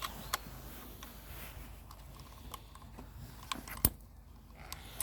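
Scattered light clicks and taps of hands working at a motorcycle handlebar, unclipping reusable plastic cable ties, with one sharper click about four seconds in.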